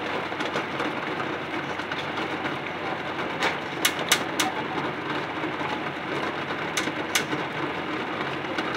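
Pot of water boiling hard with eggs in it: a steady rushing bubble, with a few sharp clicks around the middle.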